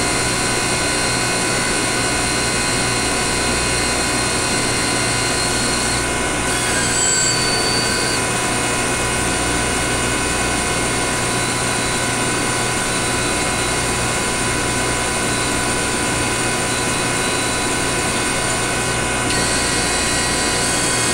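Steady machine hum with several steady whining tones from a MAT 253 isotope-ratio mass spectrometer as its bellows drive slowly moves the variable-volume bellows. A brief high chirp comes about seven seconds in.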